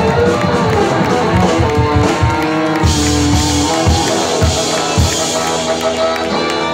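Live rock band playing loudly: a run of heavy drum hits over sustained guitar chords.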